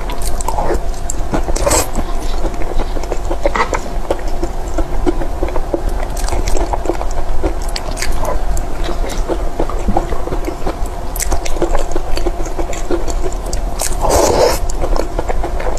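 Close-up eating sounds: soft, creamy cake bitten and chewed off a spoon, with wet mouth clicks and spoon scrapes, over a steady low hum. A longer, louder wet mouthful comes about fourteen seconds in.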